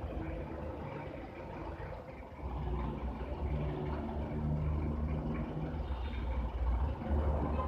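An engine running at low speed: a steady low rumble that rises and falls, fuller from about two and a half seconds in.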